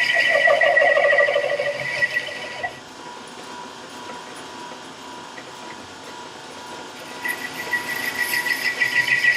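A 1941 South Bend 13-inch lathe cutting a hard steel sawmill guide roller: the tool chatters rapidly against the work with a high whine. The cut stops about three seconds in, leaving the lathe running more quietly, and the cutting picks up again near the end.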